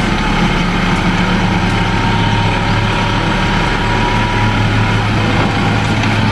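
Light dump truck's engine running steadily with a low drone while the hydraulic hoist raises the tipper bed and the load of soil slides out the back.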